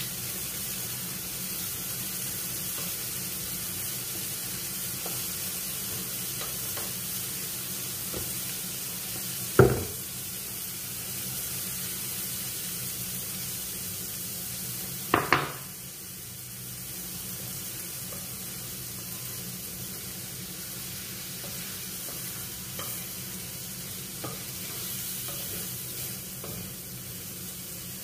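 Food sizzling steadily in a frying pan over a gas burner, with a steady low hum underneath. Two sharp knocks break through, one about ten seconds in and a quick double knock about five seconds later.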